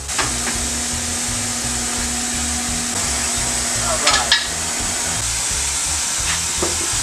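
Background music with a steady beat over a constant hiss, and a short squeak about four seconds in.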